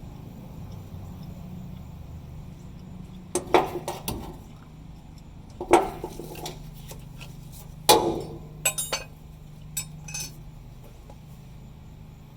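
Sharp metal clinks and knocks of hand tools against metal parts, three louder ones a couple of seconds apart followed by a few lighter ticks, over a low steady hum.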